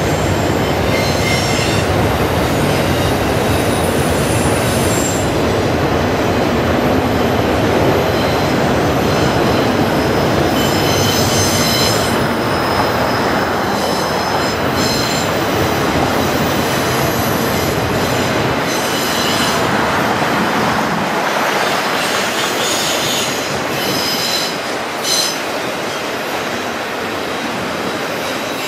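Freight train of enclosed autorack cars rolling past: a steady rumble of steel wheels on rail, with high-pitched wheel squeal that comes and goes several times. The low rumble thins somewhat in the last several seconds.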